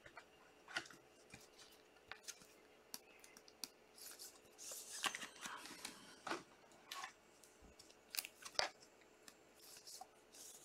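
Faint rustling and light clicks of glossy trading cards being handled and slid against one another, with a denser stretch of rustling about halfway through.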